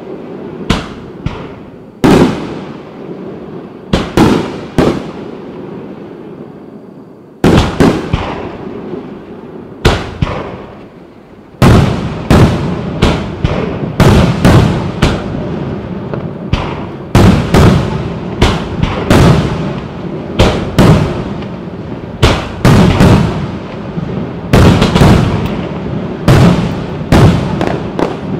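Fireworks display: separate booms, each trailing off in an echo, spaced a second or more apart at first; then, about a third of the way in, a rapid, almost unbroken barrage of bursts.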